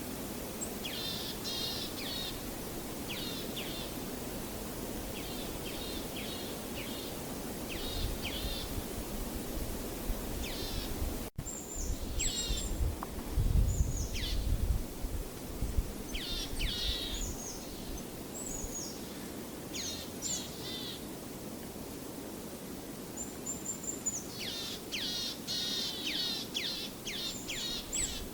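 Birds chirping and singing in quick repeated phrases over a steady outdoor background hiss. There is a brief break about eleven seconds in, then a low rumble for a couple of seconds.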